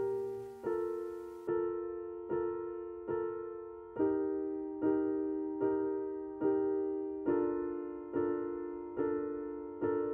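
Background piano music: slow, gentle chords struck about once every 0.8 seconds, each ringing and fading away.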